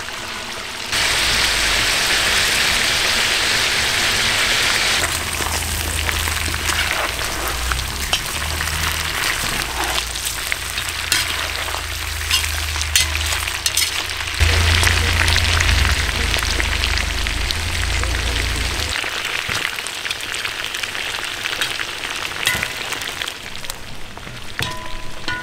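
Lamb ribs sizzling in hot oil in a large cast-iron kazan, a steady frying hiss. A metal skimmer clinks and scrapes against the pot as the meat is stirred.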